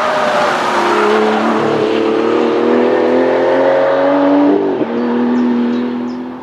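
Aston Martin V12 Vantage S's V12 engine pulling hard at full throttle, its note climbing steadily for a few seconds. A sudden break in the note just past the middle, then a steady lower note that fades as the car moves away near the end.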